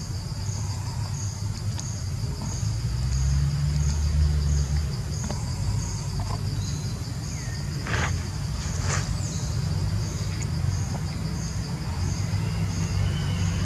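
Insects chirping in a steady pulsing rhythm, about three pulses every two seconds, over a low rumble, with two sharp clicks a second apart near the middle.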